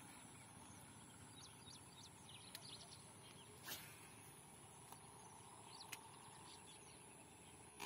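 Faint outdoor quiet with scattered short, falling bird chirps over a steady hiss, and two soft clicks about four and six seconds in.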